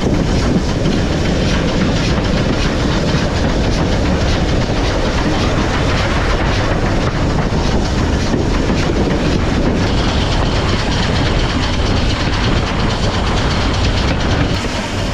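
Heritage railway train running along the line, heard on board: a steady loud noise of the carriage wheels on the track. About two-thirds of the way in, a thin high steady tone joins it.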